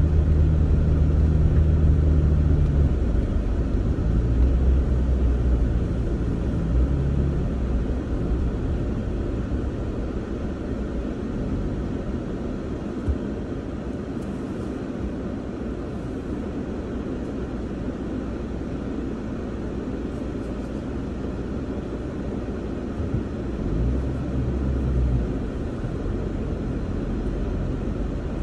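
Vehicle engine and tyres on a dirt trail heard from inside the cabin: a steady low rumble with road noise. The engine hum is stronger for the first few seconds and again briefly near the end.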